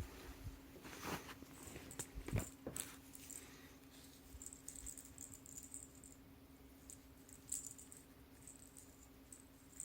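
Faint, scattered light knocks and rattling ticks over a steady low hum.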